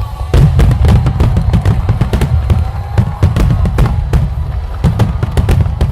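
A rapid barrage of firework bursts and crackles, starting suddenly about a third of a second in and running on densely over a deep rumble, with music playing underneath.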